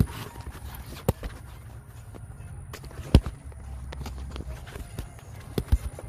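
A few sharp knocks and taps from hands and tools working in a car's engine bay, the loudest about three seconds in and two close together near the end, over a low rumble.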